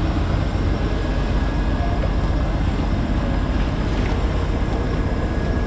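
Steady rumble of the boat's engine with wind buffeting the microphone, and water splashing against the hull as a tuna is gaffed alongside about four seconds in.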